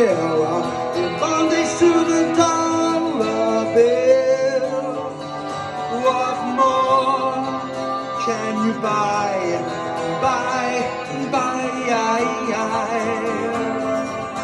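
Instrumental passage of a live acoustic guitar and electric guitar duo: the acoustic is strummed while the electric plays a lead melody with bends and wavering vibrato.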